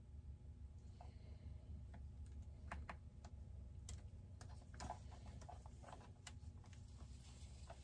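Faint, irregular small clicks and taps of plastic and metal parts being handled and fitted by hand on a chainsaw under assembly, over a low steady hum.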